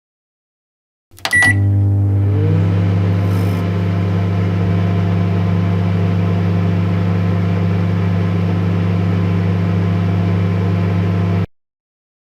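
Microwave oven starting with a click and a short beep, then running with a steady hum. The hum cuts off suddenly near the end.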